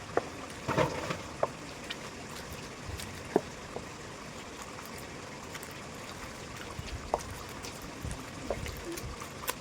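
Steady running or trickling water, with a few light clicks and knocks scattered through.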